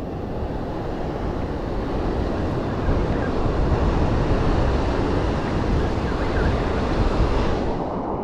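Sea surf washing around rocks with wind buffeting the microphone: a steady, low rush with no distinct strikes.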